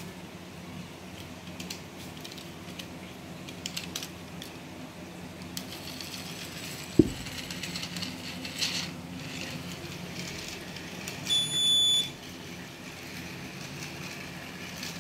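Piezo buzzer alarm on a railway-gate controller board giving one high, steady beep of under a second, about eleven seconds in. A single sharp click comes about seven seconds in, over a faint low hum.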